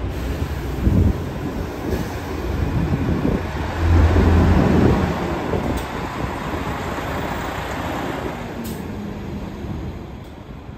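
A single-deck city bus's engine pulling away from the stop and accelerating past close by, loudest about four seconds in, then fading as the bus heads off down the street.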